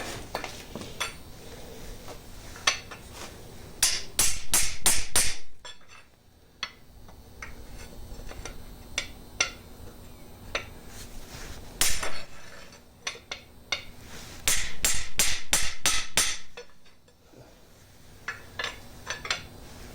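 Hammer blows on metal, working a stubborn part loose during the teardown of a Chevy LS 5.3 V8: scattered single hits and two runs of quick strikes, about four seconds in and again past the middle, with lighter taps near the end.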